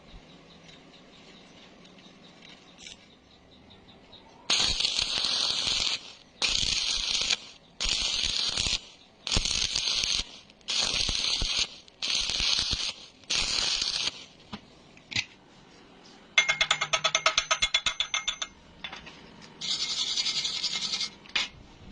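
Hand-tool scraping strokes on metal, seven in a steady back-and-forth rhythm about a second and a half apart. They are followed by a rapid ticking rattle lasting about two seconds, then one more scraping stroke near the end.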